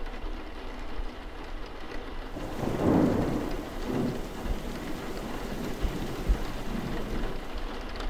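Steady rain, with a rumble of thunder swelling about three seconds in and a smaller one shortly after.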